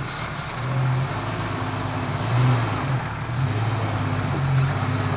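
Jeep Wrangler YJ's engine working at low speed under load as it crawls over boulders, revving up briefly about three times and dropping back between.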